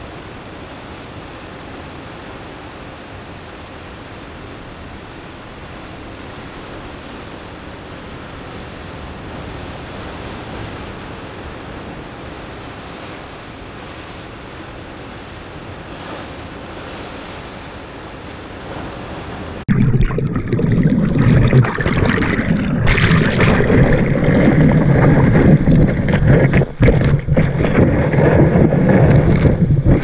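Steady rush of ocean surf. About two-thirds of the way in it cuts abruptly to a much louder, rougher rush of water, with wind buffeting the microphone.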